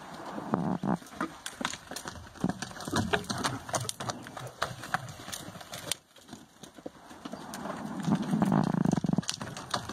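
Mustang's hooves thudding on the soft dirt of a round pen as it canters, many irregular impacts. A longer low sound about eight seconds in is the loudest moment.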